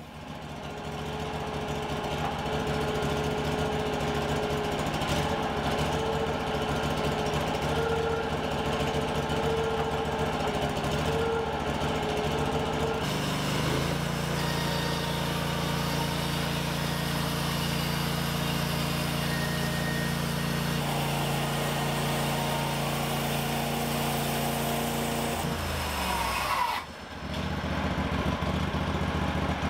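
Small gasoline engine of a Norwood portable band sawmill running steadily, with a brief drop in level near the end.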